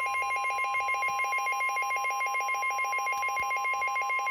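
NOAA Weather Radio warning alarm: the steady 1050 Hz alert tone, with rapidly pulsing beeps sounding over it.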